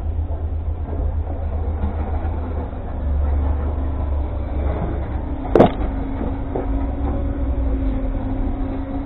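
Hino 500 truck's diesel engine idling with the cab tilted and the engine exposed, a steady low rumble. A single sharp clank comes about five and a half seconds in, and a steady higher tone runs alongside the idle after it.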